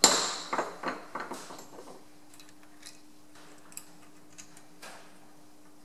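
A sharp metallic knock, followed by a rattle of smaller metal clicks dying away over about two seconds, then scattered light metal ticks as a lathe's change gears and stud nut are handled. A faint steady hum lies underneath.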